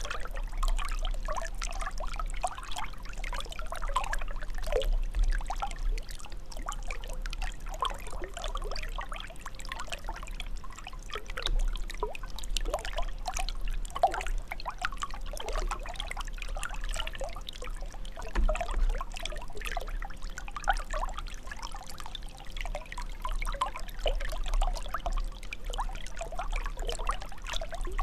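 Water trickling and gurgling, with a continuous irregular patter of small drops and bubbles.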